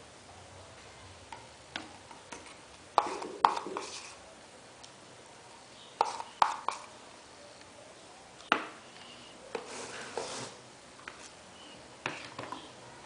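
Hard objects knocked and set down on a work surface: irregular sharp clicks and clatter, loudest in two pairs about three and six seconds in.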